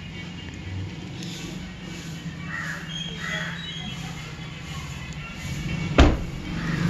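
Background music with a steady low line under it, and a single sharp knock near the end.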